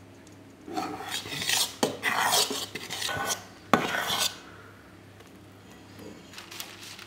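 A kitchen utensil scraping and stirring against a bowl in a few long strokes, with one sharp clink about three and a half seconds in.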